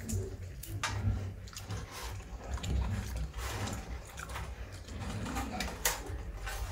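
Landrace-mix pig eating potato chips from a metal pan: irregular crisp crunching and chewing, with its snout nosing against the pan.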